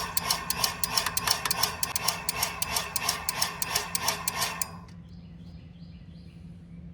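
Well pump pressure switch contacts chattering in a fast, even run of about four clicks a second, over a steady low hum, then cutting off suddenly near five seconds in. The switch is cycling at cutoff before the pressure reaches 50, which the owner puts down to too little differential between cut-on and cut-off and pressure bouncing in the pipe.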